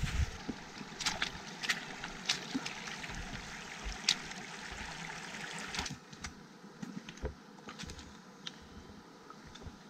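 Shallow mountain stream trickling over rocks, with many small splashing clicks. About six seconds in it gives way to a quieter spell with a few scattered ticks.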